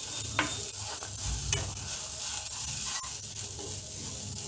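Tender tamarind leaves sizzling in oil in a non-stick kadai while being stirred with a plastic spatula, with a few light scrapes and taps of the spatula on the pan.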